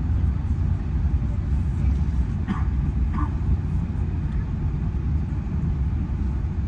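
Steady low rumble inside the cabin of an Airbus A380 taxiing, its engines at low power. Two brief faint sounds come through about two and a half and three seconds in.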